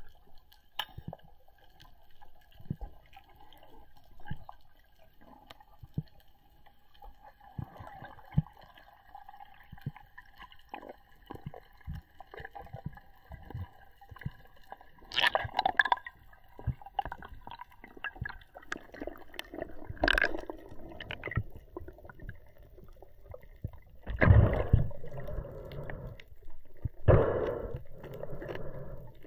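Underwater sound picked up by a mask-mounted camera during a freedive ascent: scattered clicks and gurgles over a faint steady whine, then louder rushes of water and splashing in the last few seconds as the diver nears the surface with a speared fish.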